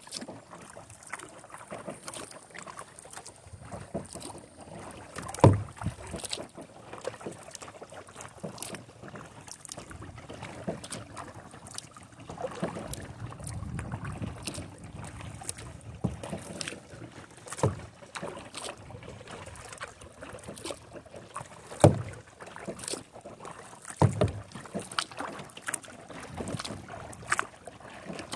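Kayak paddling: a double-bladed paddle dipping and splashing into calm water stroke after stroke, with a few louder sharp knocks now and then. Wind rumbles on the microphone at times.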